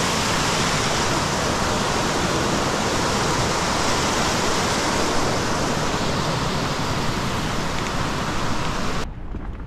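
Rushing mountain creek water, a steady loud rush that cuts off suddenly near the end.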